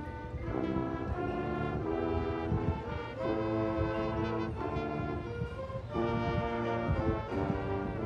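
High school marching band's brass section playing sustained chords that change every second or so.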